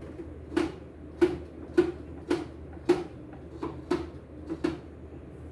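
Fingertip taps on the touchscreen panel of a CNY E960 embroidery machine while testing its touch response: about nine sharp plastic taps, roughly two a second.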